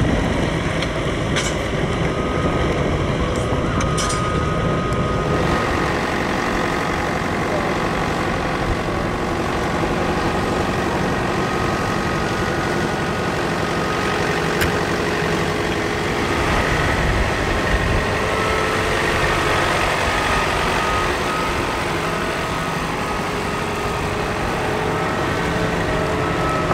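Piston engines of Curtiss warbirds, P-40 Warhawks and P-36 Hawks, running steadily.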